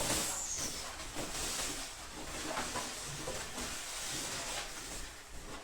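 Soft rustling and handling noise with a faint hiss, with a brief high swish at the start.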